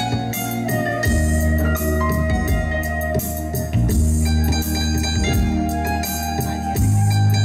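Live instrumental band music through a PA system: keyboard and guitar notes over a low bass and a steady drum beat with cymbal ticks.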